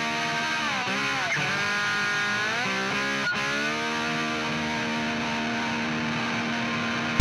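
Electric guitar music: long sustained notes with slow pitch bends, dipping about a second in and rising again near the three-second mark, then one note held steady.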